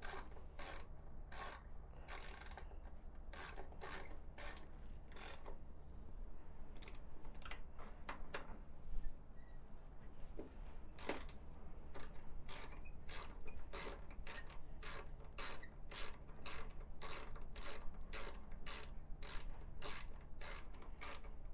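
Ratcheting hand driver clicking as it tightens motorcycle fuel-tank bracket bolts, a few irregular clicks at first, then a steady run of about two clicks a second in the second half.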